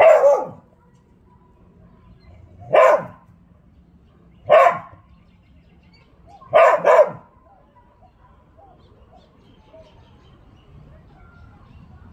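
Dog barking: five short barks, three single barks a couple of seconds apart and then a quick double bark.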